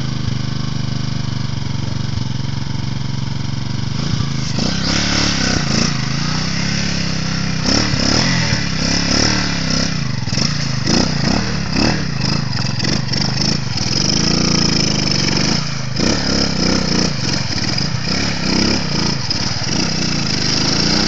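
Bashan 200cc ATV's single-cylinder engine running steadily at first, then revved up and down over and over from about four seconds in as the quad is driven through deep water and up out of it.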